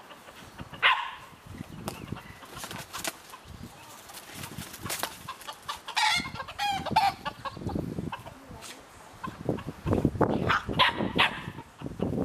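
Roosters squawking and clucking as a dog chases and paws at them: a sharp squawk about a second in and a longer squawking call around six seconds in, with scuffling on the grass in the second half.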